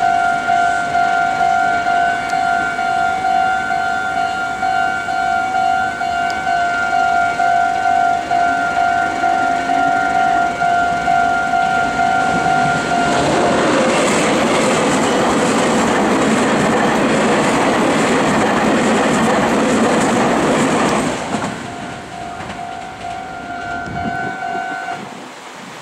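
Japanese railway level-crossing warning bell ringing in fast repeating dings. About halfway through, a Meitetsu electric train passes at speed for about eight seconds, its running and wheel noise covering the bell. The bell is heard again more quietly after the train and stops near the end.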